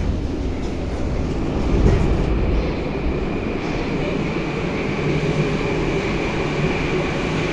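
Running noise of an 81-717/714 metro train, heard from inside the car: a dense, steady rumble, with a thin high steady whine coming in about two and a half seconds in.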